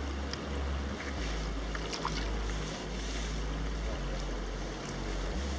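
Wind buffeting the microphone in low gusts, over light splashing of a small hooked fish thrashing at the pond's surface as it is drawn to the bank.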